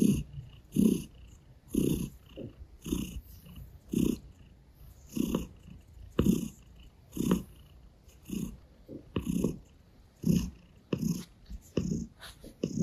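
Russian Blue cat purring close to the microphone, the purr swelling and fading about once a second with each breath.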